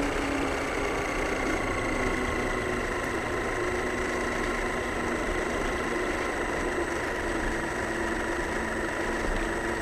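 Radio-controlled model car's motor running at a steady speed, a constant drone with no revving.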